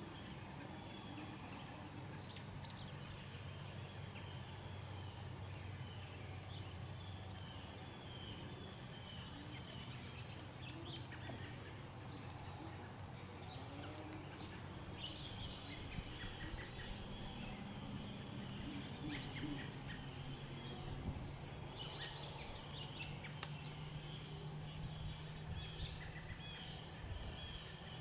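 Quiet outdoor ambience: scattered faint bird chirps and calls over a low, steady hum, with the calls getting busier in the second half.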